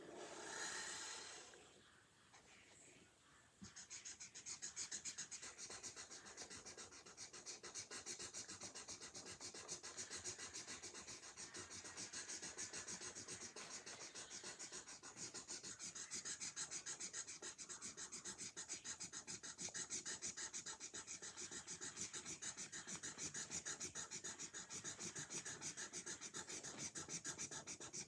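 Felt-tip marker scratching on paper in rapid back-and-forth strokes, as lines are filled in on a drawing; the strokes start about four seconds in and keep a quick, even rhythm. A short burst of noise comes just before, near the start.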